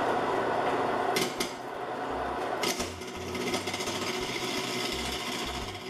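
Small benchtop wood lathe running, with its motor hum under the rough, chattering noise of a hand-held turning tool cutting a spinning square-edged wood block. A few sharper knocks come about a second in and again near three seconds.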